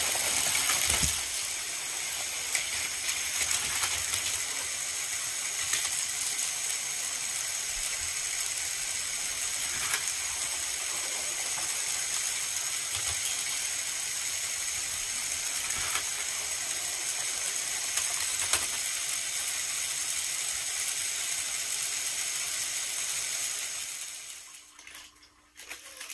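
Several battery-powered Plarail toy trains running on plastic track: a steady high whir of small motors and wheels rattling over the track joints, with occasional sharp clicks and knocks. The sound fades out about two seconds before the end.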